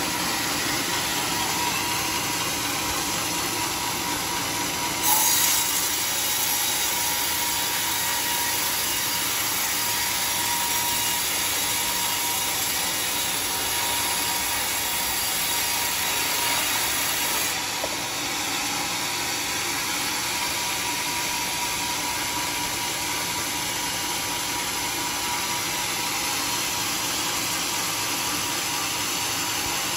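Sawmill band saw cutting lengthwise through a large teak log: a steady dense sawing noise over the machine's running. A harsher, higher hiss starts with a brief jump in level about five seconds in and drops away about seventeen seconds in.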